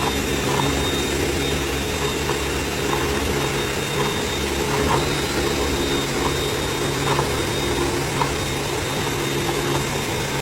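Electric drill running steadily at constant speed, driving a homemade grinding mill, with a steady motor whine and a few faint irregular clicks.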